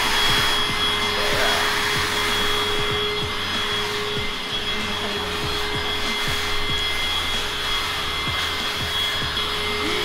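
Deerma VC25 cordless handheld vacuum cleaner running steadily as its nozzle is drawn over a mattress and pillows: a rush of air with a steady high motor whine.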